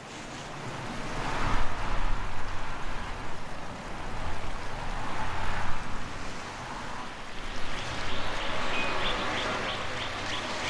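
Wind gusting through bare treetops, a rushing noise that swells and eases twice, with a quick run of faint high chirps near the end.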